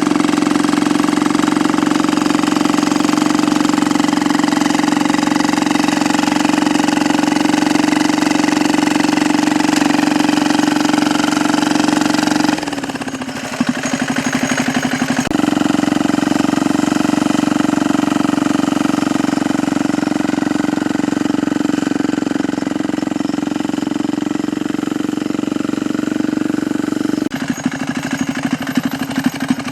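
198 cc single-cylinder diesel engine running loud and steady with a fast knocking beat through its open exhaust tip. About 13 seconds in it drops and runs rougher for two seconds before picking back up, and its note changes again near the end.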